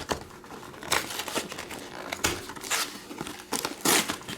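Plastic wrapping on a box or packs of baseball cards crinkling and tearing in irregular bursts as it is opened by hand, loudest near the end.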